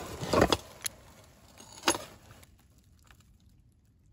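Hands rummaging through a plastic tote of junk: items of metal and plastic knock and rattle against each other in a few sharp clatters during the first two seconds.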